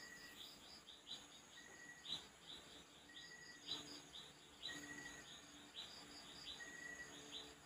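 Near silence with faint background chirping of birds and insects: short falling chirps about twice a second over a faint, steady pulsing trill.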